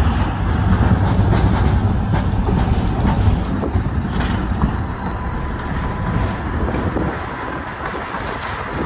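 Ganz KCSV-7 articulated tram running on its rails: a steady low rumble of wheels on track with scattered clicks and rattles. The rumble eases somewhat about halfway through.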